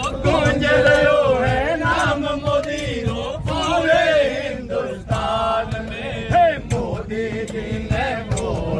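A group of men singing a Rajasthani-dialect folk song in chorus to a bhajan tune, with sharp hand claps scattered through the singing.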